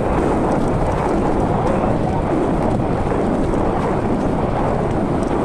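Steady wind rumble on the microphone of a camera riding along on a mountain bike.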